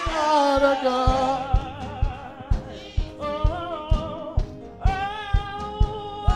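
Live gospel worship song: a singer holding long, wavering notes over a steady beat of about two a second.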